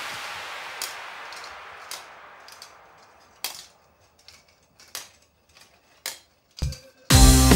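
Steel marbles clicking and knocking through a GraviTrax plastic marble run: separate sharp clicks at uneven gaps, the loudest about three and a half seconds in, then a duller knock near the end. Background music fades out at the start and comes back in loudly just before the end.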